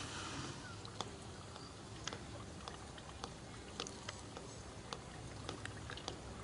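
Irregular faint clicks and crackles, a few to the second, over a steady low background hum.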